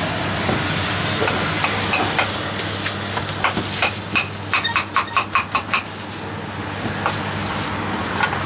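Crinkle-cut knife chopping slices off a firm white fruit over a wooden cutting board: a few scattered sharp cuts, then a quick run of about eight cuts near the middle, over steady street background noise.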